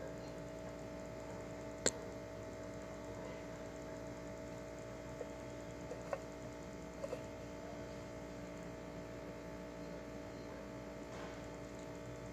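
Steady electrical mains hum, with a few light clicks and taps: one sharp click about two seconds in and a small cluster of softer ones around six to seven seconds.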